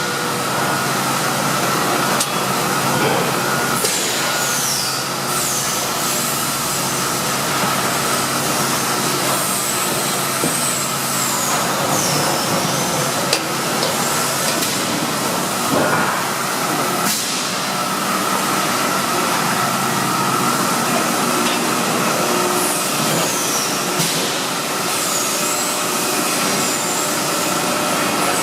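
A 1985 Cincinnati 175FM-10 CNC hydraulic press brake running: its hydraulic pump and electric motor give a steady hum with a constant whine. A few high sweeping tones dip and rise now and then over it, with an occasional click.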